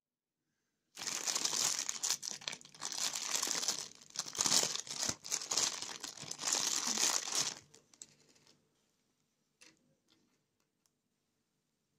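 Clear plastic packaging bag crinkling and rustling in irregular bursts as hands open it and pull out a plastic toy, for about seven seconds, then dying away to a few faint clicks.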